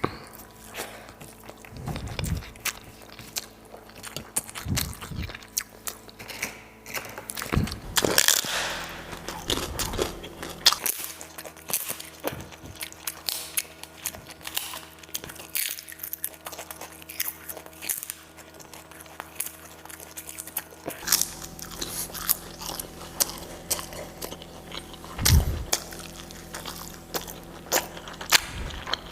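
Close-miked eating: chewing and biting, with crunchy bites and wet mouth clicks. A few heavier crunches come at about 2, 5, 8, 10 and 25 seconds in.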